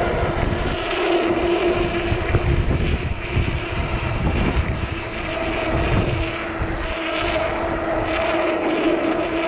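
Electric bike motor humming steadily at full throttle, a constant whine, with wind buffeting the microphone in gusts underneath.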